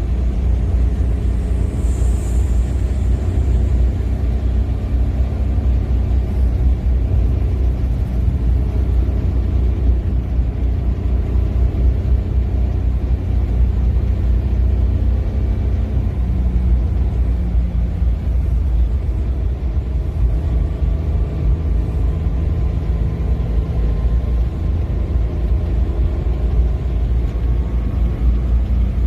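Steady low rumble with no breaks or distinct events.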